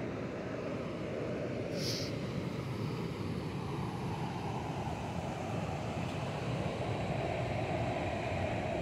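Steady rushing of water pouring over a low river dam, growing slightly louder near the end, with a brief high hiss about two seconds in.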